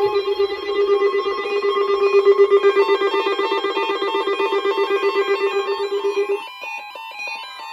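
Weather radio warning alarm sounding as a rapidly pulsing electronic tone, which stops about six seconds in, over background music.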